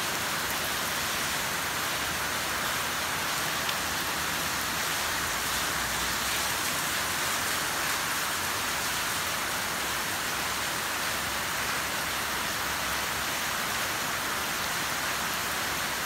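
Heavy rain pouring steadily onto roofs and paved ground, an even, unbroken hiss.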